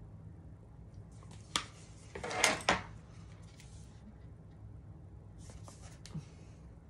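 Plastic makeup palette and brush being handled: a single click about a second and a half in, then a short cluster of clattering knocks around two and a half seconds, and softer rustling and a tap near six seconds, over a steady low hum.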